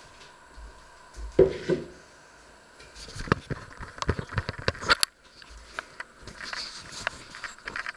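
Handling noise in a kitchen: two dull knocks about a second and a half in, then a quick run of clicks and taps for about two seconds as the camera is gripped and moved, with lighter taps after.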